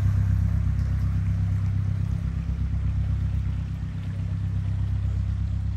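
Canal narrowboat's diesel engine running steadily at low speed with a low, even chugging, growing slightly fainter over the first few seconds as the boat pulls away.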